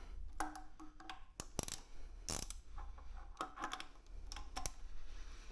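Scattered sharp metallic clicks and short squeaks from hand tools and metal hardware being worked, as when the frame slider fittings are tightened by hand.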